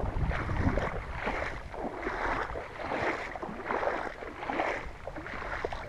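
Footsteps wading through a shallow muddy puddle, the water splashing and sloshing with each step, a little more than one step a second.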